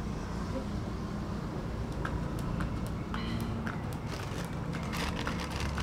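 Steady low hum of outdoor street ambience, with scattered small clicks and rustles of handling from about two seconds in and one brief squeak a little after three seconds.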